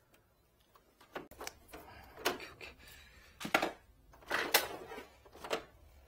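Plastic front cover of a Winia wall-mounted air conditioner indoor unit being unclipped and lifted off: a string of sharp plastic clacks and rattles, starting about a second in, with the loudest snaps a little past the middle.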